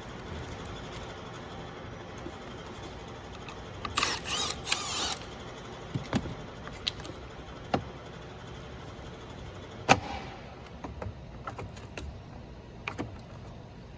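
Small hand tools and plastic dash trim being handled while a T15 Torx screw is taken out: a short rattling burst about four seconds in, then scattered clicks and knocks, the sharpest near ten seconds.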